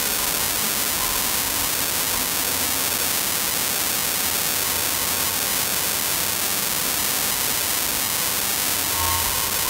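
A steady, loud hiss with no clear events in it. Faint steady tones come in near the end.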